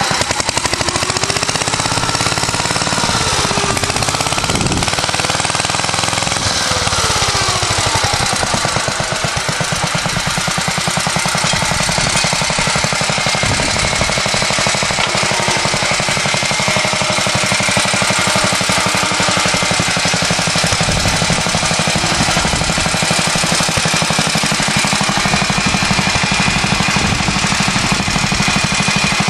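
1947 Clifford Mk1 two-wheel tractor's J.A.P. engine running hard while pulling a plough, with a fast, rapid firing beat. Its speed rises and falls during the first several seconds, then holds steady.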